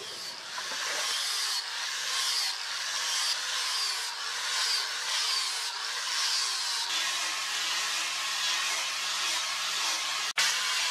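Handheld rotary sander, an angle-grinder-type tool with a foam-backed sanding disc, running steadily while grinding down a wooden knife handle. It makes a dense, hissing grind over the motor's hum, with the pitch dipping at each pass about once a second through the middle.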